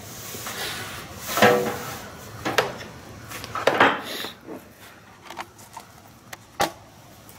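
Handling noises in a workshop: scattered knocks, clunks and scrapes as things are moved about on and around the bench, with a few sharp clicks.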